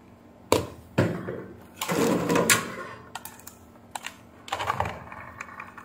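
Multimeter test probes and leads being handled and set down on a workbench: a couple of sharp clicks and knocks, a short clatter about two seconds in, then lighter scattered ticks and handling noise.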